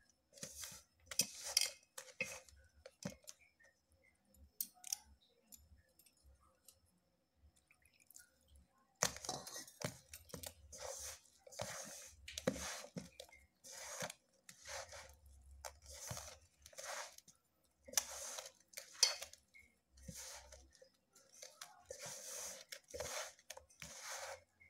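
A hand squeezing and mixing shredded cabbage with gram flour and rice flour in a stainless steel bowl, making pakoda dough: crunchy, squishing bursts against the bowl. There are only a few for the first several seconds, then roughly one squeeze a second.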